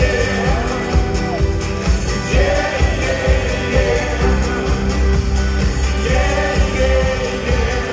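Live rock band playing with lead vocals sung over it and a heavy bass, heard from within the audience.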